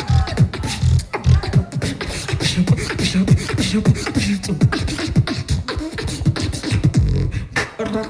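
Solo beatboxer performing into a handheld microphone: a fast, dense rhythm of vocal drum clicks and snares over deep bass sounds that keep sliding down in pitch.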